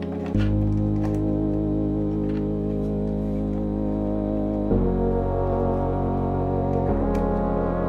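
Background music: sustained keyboard chords that change every few seconds.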